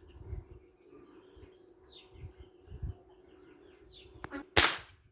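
A Stoeger air rifle fires a single loud, sharp shot near the end, just after a faint click. Birds chirp throughout, and low wind rumble puffs on the microphone.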